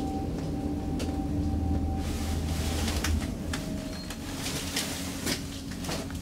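Traction elevator travelling with a steady low hum and whine, which stops about three seconds in with a clunk as the car comes to rest, followed by scattered clicks and rattles from the cab and doors.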